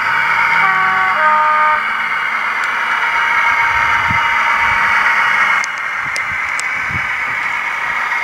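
Sound decoder of a model North British Type 2 (Class 22) diesel-hydraulic playing through the model's small loudspeaker: a steady, hissy engine sound, with a two-tone horn sounded about a second in. The horn is one note and then a second, lower one. A few faint clicks come about five and a half seconds in, and the engine sound dips a little there.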